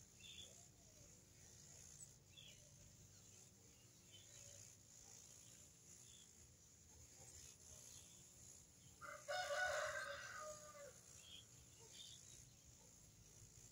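A rooster crowing once, about two seconds long, starting about nine seconds in, against near silence with faint short high chirps now and then.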